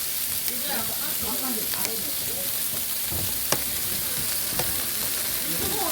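Food sizzling steadily on a large iron griddle over a wood fire, with a few sharp clicks of metal on the plate; the loudest click comes about three and a half seconds in.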